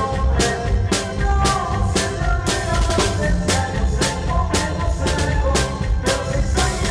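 Live dance band playing, with a drum kit keeping a steady beat of about two strokes a second under a melody.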